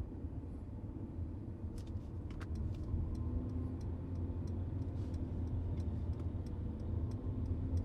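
Steady low rumble heard inside the cabin of a Mercedes-Benz C300 (W205) on the move. From about two seconds in, the turn-signal indicator ticks evenly, a few clicks a second.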